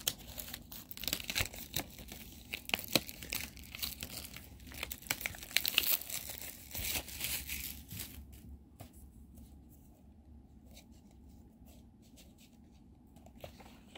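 Plastic packaging crinkling and tearing as it is pulled off by hand. It is busy and crackly for about the first eight seconds, then thins to faint scattered crinkles.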